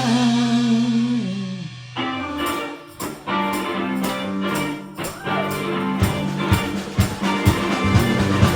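Band music: a held chord with a sustained note dies away about two seconds in, then drums come in with a run of sharp hits under guitar and bass.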